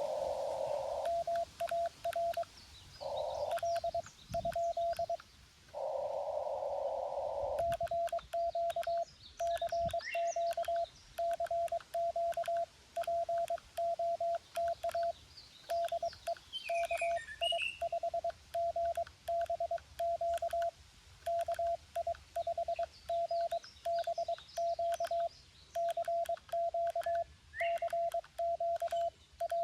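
Morse code from a Xiegu G90 ham transceiver: a single steady mid-pitch tone keyed on and off in dots and dashes, with stretches of narrow-band receiver hiss in the pauses during the first several seconds. Faint bird chirps sound in the background.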